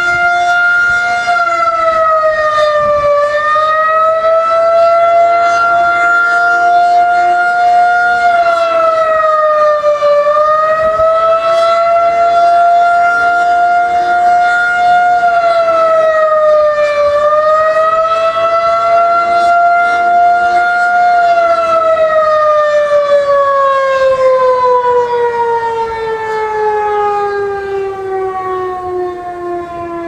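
Federal Signal 2001-SRN battery-powered rotating outdoor warning siren sounding a steady tone during a test, its pitch dipping briefly about every seven seconds as the horn rotates. About two-thirds of the way through it begins to wind down, the pitch falling steadily.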